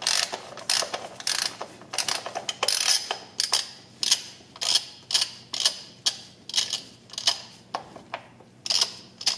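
Ratchet wrench with a 7/16-inch socket on an extension clicking in short back-and-forth strokes, about two a second, as it spins out an automatic transmission's drain plug.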